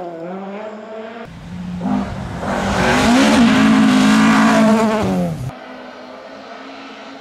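Fiat 131 Abarth rally car's four-cylinder engine working hard on a gravel stage: a brief rise and fall of revs, then a loud close pass with the revs held high. The sound cuts abruptly twice, about a second in and near the end, where the engine drops to a quieter, distant note as the car approaches.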